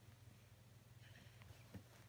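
Near silence: room tone with a faint steady low hum and one soft knock near the end.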